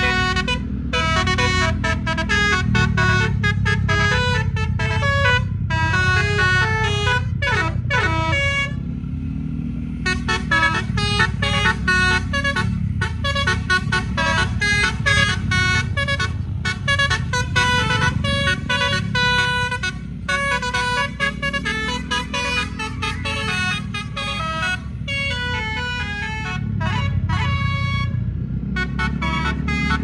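Bus musical air horn ("telolet", a DAF multi-trumpet set) playing a fast tune of short stepped notes, with a brief break about nine seconds in. The bus engine idles steadily underneath.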